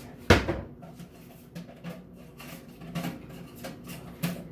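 Handling clatter of hard parts and tools: one loud knock about a third of a second in, then several lighter clicks and clinks spread through the rest.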